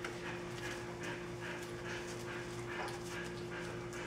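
Young puppies whimpering with short, repeated squeaks, several a second, over a steady low hum.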